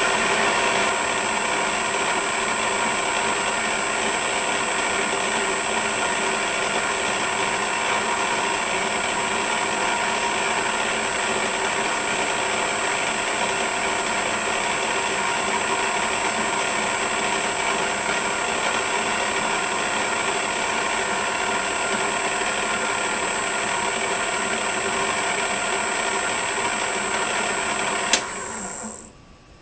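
Metal lathe with a VFD-driven motor running steadily under a parting tool cutting a tee-bolt blank held in a collet chuck, with a steady high whine over the machine noise. Near the end there is a sharp click and the lathe is switched off and goes quiet.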